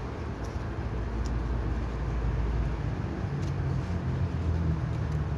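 Steady low background rumble, with a few faint light clicks as a display opener is worked under the edge of a phone's screen to free its adhesive.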